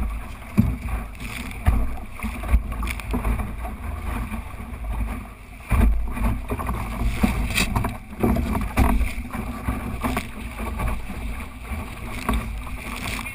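Water rushing and slapping against the hull of a small sailing dinghy under way, with wind buffeting the microphone and irregular knocks from the boat.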